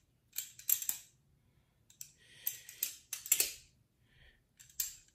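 Balisong (butterfly knife) being flipped open and closed: its metal handles swing and snap against each other and the blade, giving a string of sharp, irregular metallic clicks and clacks.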